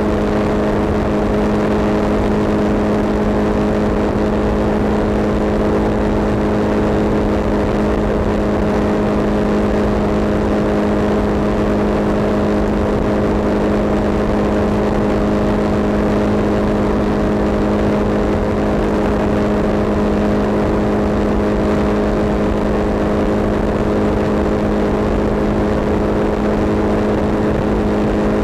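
Road vehicle driving at a steady speed: engine drone holding a constant pitch over tyre and road noise.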